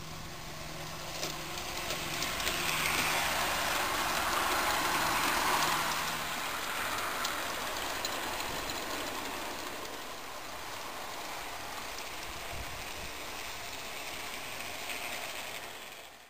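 Model Chessie diesel locomotive with new motors running past on an outdoor garden railway, pulling boxcars: motor hum and wheels rattling over the track, louder as the train goes by about three to six seconds in.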